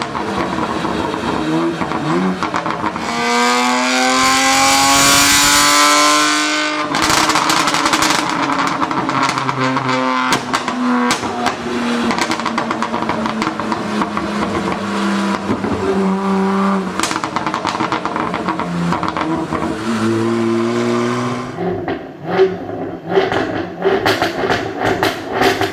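Supercar engine revving hard, its note rising in pitch, then running on with scattered exhaust cracks; near the end the exhaust pops and crackles in a string of separate sharp bangs.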